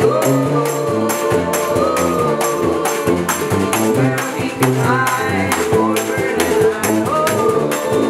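Old-time string band playing: acoustic guitar and banjo over a tuba bass line, with washboard and snare drum keeping a steady beat of about four strokes a second.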